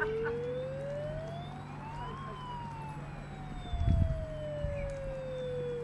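Siren sound effect for a miniature fire-engine scene: one slow wail that rises for about two seconds, then falls away slowly. A brief low thump comes a little before four seconds in.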